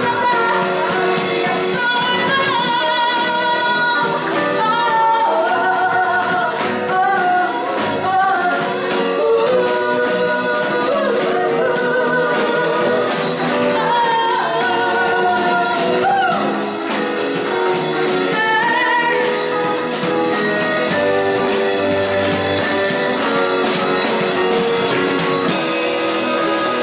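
Live band playing a song: a woman's lead vocal with a backing vocal over a drum kit and guitars.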